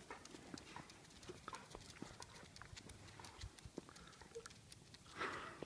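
Almost silent, with faint, scattered clicks of animal footsteps from the dog leading the cat on its leash, and a soft rustle near the end.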